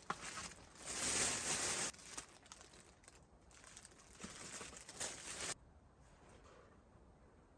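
Irregular crinkling and rustling, in several stretches, stopping about five and a half seconds in.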